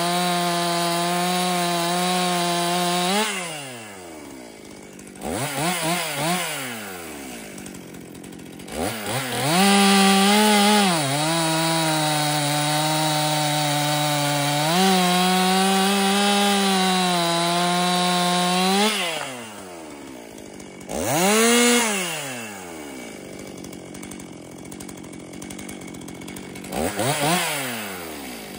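Stihl MS261C two-stroke chainsaw with a 0.325-pitch chain cutting a log at full throttle. It breaks through a few seconds in and drops to idle with a couple of quick revs. It then makes a second steady cut of about nine seconds, followed by idling with short throttle blips.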